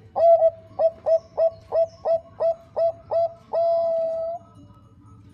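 Zebra dove (Bangkok-type perkutut) singing: a run of short clipped coos, about three a second, ending in one long held coo.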